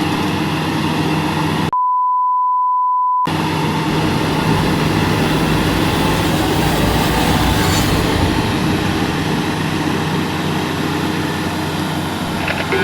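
Bulldozer's diesel engine running steadily under load while it pushes soil. Less than two seconds in, an inserted steady beep cuts over everything for about a second and a half.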